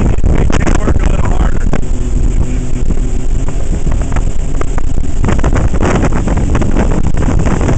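Heavy wind buffeting the microphone over the steady running of a tow boat's engine and the rush of its churning wake.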